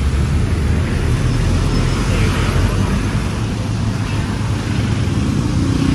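Steady low rumble of city road traffic, with cars and motorbikes passing close by.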